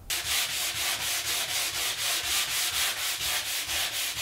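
Hand sanding of a curved wooden table leg with sandpaper wrapped around a hand block, a rasping scratch in quick, even back-and-forth strokes of about five a second, starting abruptly just after the beginning.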